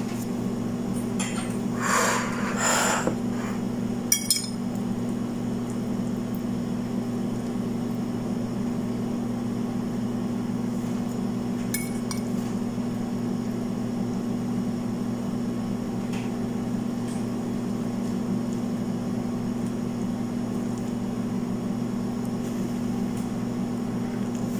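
A metal fork scraping and clinking against a plate as noodles are eaten, a few short clinks, the busiest stretch about two to three seconds in and another single clink near the middle. Under it runs a steady low hum.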